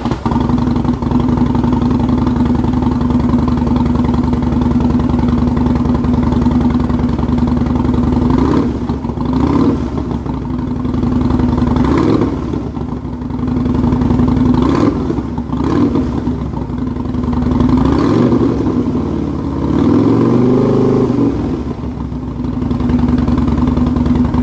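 Harley-Davidson Twin Cam 88 V-twin, just started, exhausting through Vance & Hines Straightshots slip-on mufflers with Super Quiet baffles. It idles steadily for about eight seconds, then gets a string of short throttle blips and one longer rev near the end, with a deep, mellow tone.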